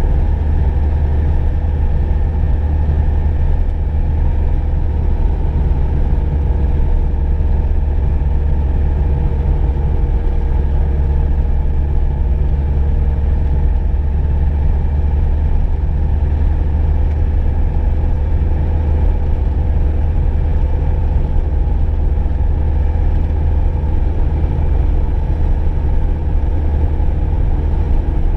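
VW Golf II heard from inside the cabin while driving: a steady low engine and road rumble with a faint even hum above it.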